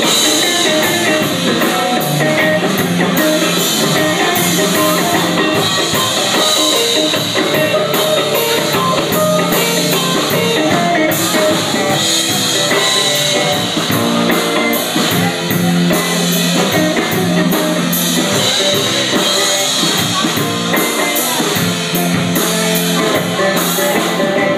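Rock band playing at full volume: drum kit and guitar.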